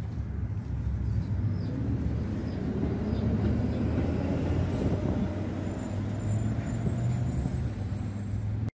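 Tatra T5C5 tram moving along the platform: a steady low hum from the traction equipment over the rumble of the wheels on the rails. Thin high-pitched tones join from about five seconds in. The sound cuts off abruptly near the end.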